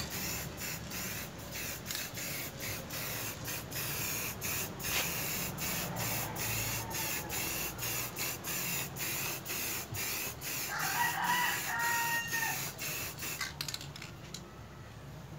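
Aerosol spray can of flat black paint hissing in quick repeated spurts, about two or three breaks a second, then stopping near the end. A brief pitched call sounds faintly in the background about eleven seconds in.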